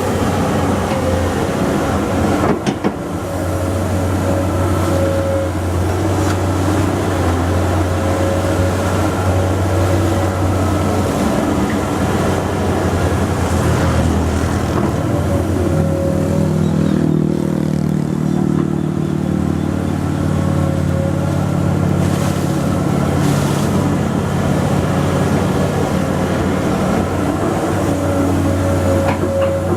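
Excavator diesel engine running steadily, with a louder, fuller engine note from about halfway through as it works under load. There is a single knock about three seconds in.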